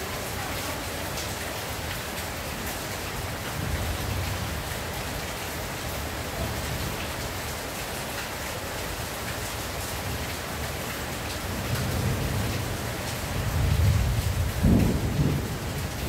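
Rain falling steadily on a tin roof, with low thunder rumbling about four seconds in and building to its loudest near the end.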